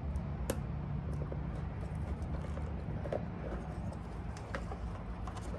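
Small clicks and taps of motorcycle wiring connectors being handled and unplugged, over a steady low hum.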